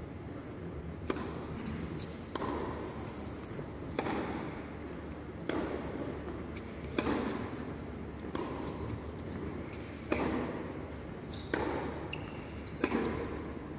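Tennis ball struck back and forth in a baseline rally, about nine racquet strokes roughly every second and a half, each one echoing around a large indoor arena.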